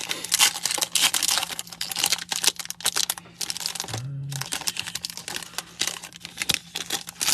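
A football trading card pack wrapper being torn open and crinkled by hand, in dense irregular crackles with a short break about three seconds in. The wrapper is not tearing cleanly.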